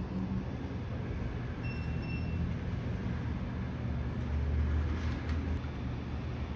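Steady low rumble of a running vehicle, with a faint short high beep about two seconds in.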